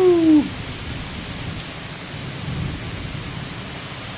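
Heavy rain pouring down steadily on trees and paving, with a low rumble underneath.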